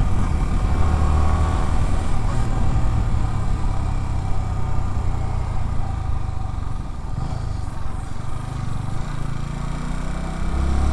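Yamaha R15's single-cylinder engine running steadily at a cruise as the motorcycle is ridden, with wind rush over the rider's microphone.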